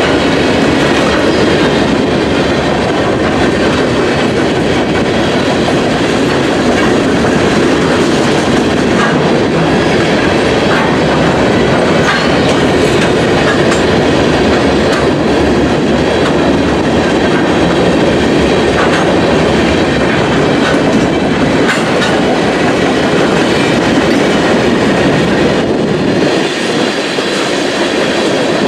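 Freight train of open-top hopper cars rolling past close by: a loud, steady rumble of steel wheels on the rails, with scattered sharp clicks as the wheels cross rail joints.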